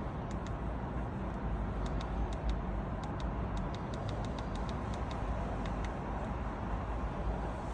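Steady low background rumble with a series of light, short clicks scattered through the middle.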